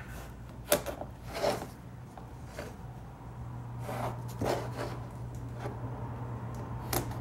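Short soft scratching and rubbing strokes: a marker tracing around a wooden block on a beadboard panel to mark a cut-out, with the block shifted against the panel between strokes.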